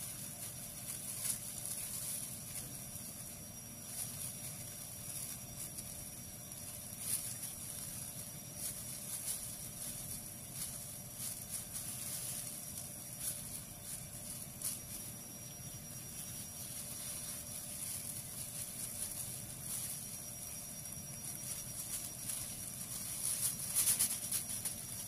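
Thin plastic food-handling glove rustling and crinkling, with light irregular clicks of bamboo skewers and fried chicken intestine pieces being handled over a non-stick pan, louder near the end. A faint steady hum runs underneath.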